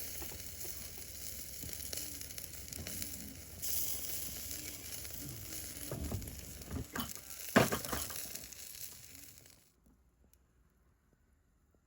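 Chicken wings sizzling as they grill over a wood fire, fat spitting in a steady hiss, with a few sharp knocks, the loudest about seven and a half seconds in. The sizzle cuts off suddenly near the end, leaving near silence.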